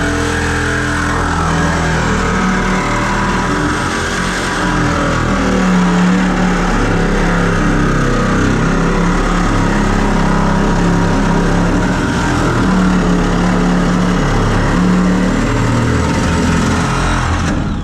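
An engine running steadily and loudly, its pitch shifting up and down at times, then cutting off suddenly at the end.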